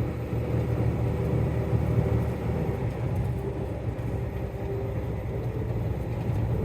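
Steady low rumble inside a Kenworth T680 truck cab as it coasts downhill in neutral, with the engine and road noise running evenly throughout.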